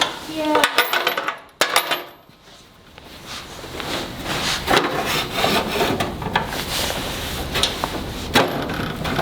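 Clinks and rattles of metal hand tools and small metal parts being handled, with sharp clicks in the first couple of seconds and a busier run of small clicks and scraping from about three seconds in.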